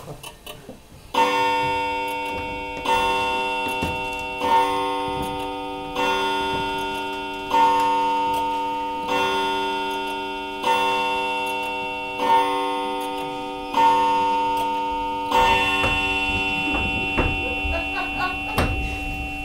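A clock chime striking ten times, evenly about one and a half seconds apart, each stroke a ringing bell tone that fades before the next; the last stroke rings on, with faint knocks underneath near the end.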